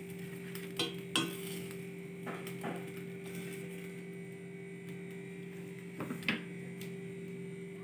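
A metal spatula scraping and tapping against a stainless-steel frying pan as an omelette is lifted out, with a few scattered light knocks over a steady low hum.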